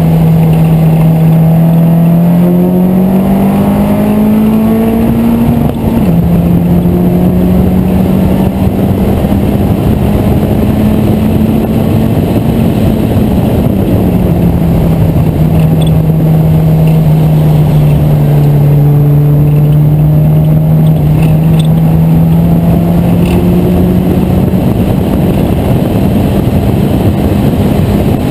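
Open-cockpit vintage race car's engine heard onboard at racing speed, revs climbing for about six seconds then dropping sharply at a gear change, easing off about halfway through and slowly building again toward the end. Steady wind and road rush runs underneath.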